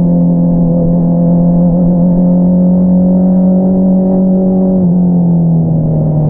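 2022 Honda CBR650R's inline-four engine running through an Akrapovič single-outlet exhaust, holding a steady engine speed on the move; the note drops a little about five seconds in.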